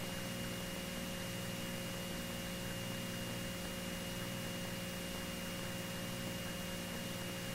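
Faint steady electrical hum and hiss on an aircraft intercom audio feed, with a thin, steady high tone above it.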